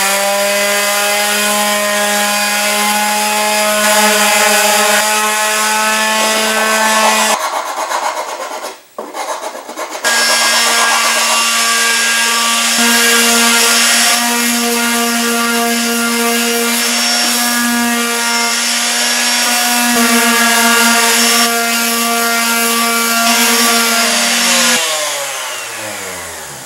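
Ryobi electric palm sander running under load, sanding dried wood filler off rocket fins and a paper body tube. It runs steadily, stops briefly about eight seconds in, starts again, and winds down near the end.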